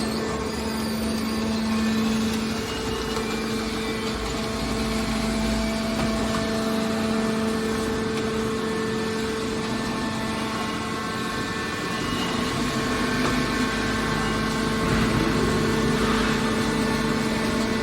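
Hydraulic scrap-metal baler running: a steady mechanical hum from its motor and pump, holding one pitch, getting a little louder in the last few seconds.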